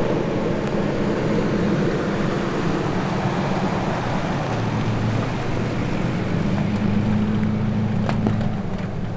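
Nissan Frontier Pro-4X pickup's 4.0-litre V6 running as the truck drives past on a dirt road, a steady engine hum over tyre and dust noise. The engine note drops about halfway through and rises again, and a few sharp clicks come near the end.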